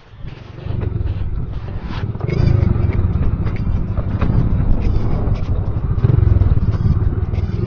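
Honda XRM motorcycle's single-cylinder four-stroke engine running under the rider, heard from on board over a rough dirt trail, with rattles and jolts from the bumpy track. It is low at the start and builds up over the first two seconds as the throttle opens.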